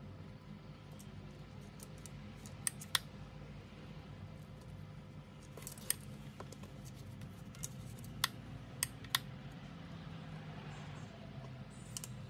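Transformer soldering gun humming steadily while held to a wire joint on an LED strip, with a handful of sharp light clicks and taps from handling the wires and gun.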